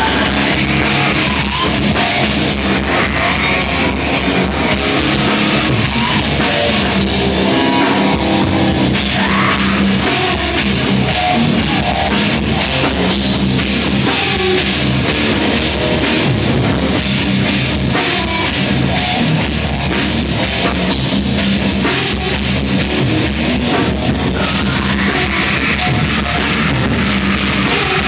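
Heavy metal band playing live: distorted electric guitars over a drum kit with cymbals, loud and steady, heard from the audience.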